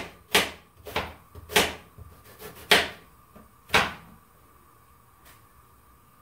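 Knife chopping onion on a cutting board: six sharp knocks at uneven spacing, stopping about four seconds in.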